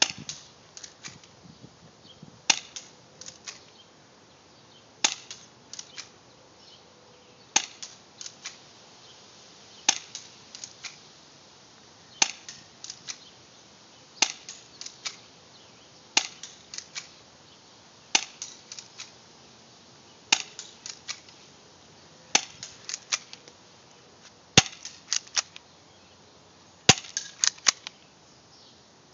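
Crosman Stinger P311 spring airsoft pistol firing about a dozen shots, one sharp snap roughly every two seconds, each followed by two or three lighter clicks.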